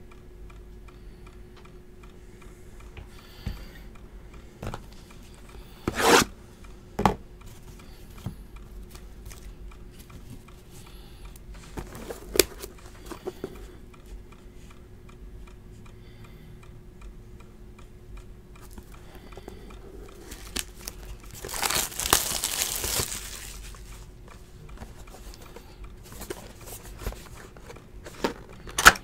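Plastic shrink wrap being torn and crinkled off a Panini Pantheon football card box: scattered crackles, sharp rips about six, seven and twelve seconds in, and a longer crinkling rustle a little past twenty seconds, over a faint steady hum.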